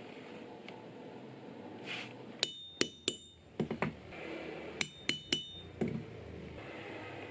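Mallet striking a multi-prong pricking iron (stitching chisel) to punch stitch holes in leather: three sharp strikes with a brief metallic ring, softer knocks, then three more strikes and knocks.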